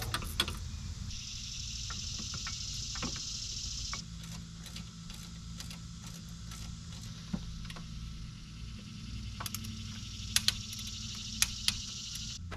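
Scattered light metal clicks and clinks of hand tools and parts as a Jeep Grand Cherokee's front wheel hub and bearing are put back together, with a few sharper clinks near the end. A steady high buzzing hiss runs behind it, dropping out for a few seconds and coming back.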